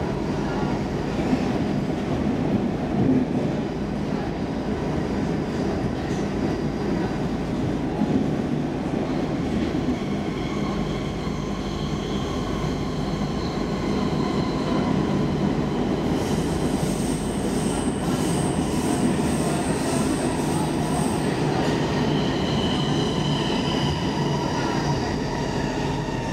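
Stockholm Metro C15 train running at speed, heard from inside the car: a steady low rumble of wheels on rail. From about ten seconds in, thin high-pitched squealing tones join it, strongest past the middle, typical of wheel squeal on curved track.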